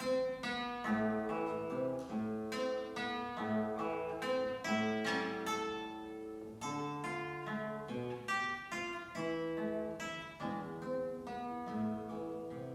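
Solo classical guitar playing a piece of plucked single melody notes over lower bass notes, each note struck sharply and left to ring.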